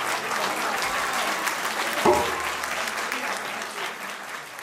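Audience applauding, with one brief louder sound about two seconds in; the clapping fades near the end.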